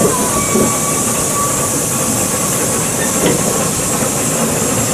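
Grafton steam locomotive crane travelling along rails: a steady hiss of steam mixed with the running noise of its wheels on the track.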